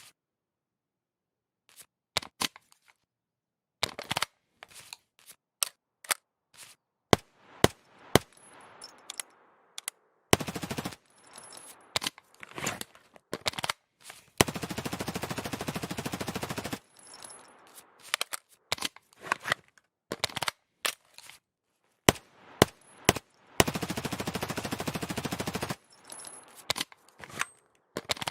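MP5 submachine gun firing: scattered single shots and short strings, a brief burst of automatic fire about ten seconds in, and two sustained full-auto bursts of about two seconds each.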